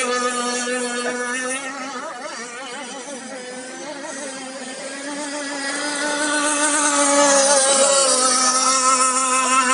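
Radio-controlled model speedboat running flat out across the water, its motor giving a steady high-pitched buzzing note. It grows louder as the boat comes close and drops in pitch as it passes, about eight seconds in.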